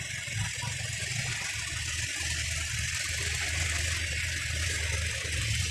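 An engine idling, a steady low hum with hiss above it that grows a little stronger about two seconds in.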